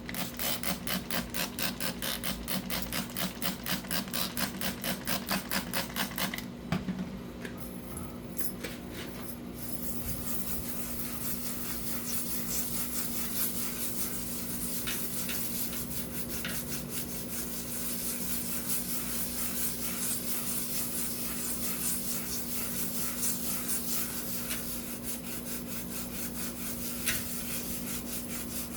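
Rhythmic rubbing or scraping strokes, about four a second. After about six seconds they give way to a steady rough hiss with scattered clicks, and the strokes return near the end.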